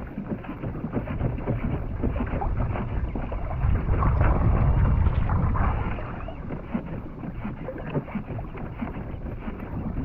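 Wind buffeting the microphone and water sloshing against a kayak's hull on a choppy sea, a steady rushing noise that grows louder for about two seconds in the middle.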